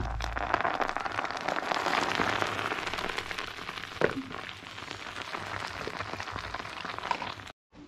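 Hot oil poured into a pool of liquid in a tray of crumbled bread, sizzling and crackling and strongest in the first few seconds. One sharp knock comes about four seconds in.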